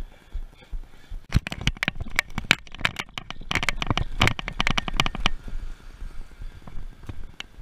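Dense, irregular clicking, tapping and rustling from a body-worn action camera being jostled as its wearer walks and climbs, lasting about four seconds and dropping off about five seconds in.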